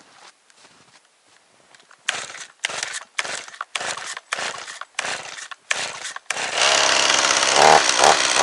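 Two-stroke chainsaw being pull-started: a quick run of starter-cord pulls, about two a second, then about six seconds in the engine catches and runs loud, revved up once near the end.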